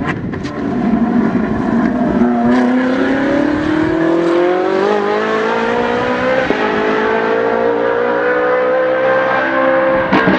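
Ferrari 458 Challenge's flat-plane V8 accelerating at full throttle, loud, its revs climbing steadily. The revs drop once about six and a half seconds in at an upshift, then climb again. A sharp click comes about ten seconds in.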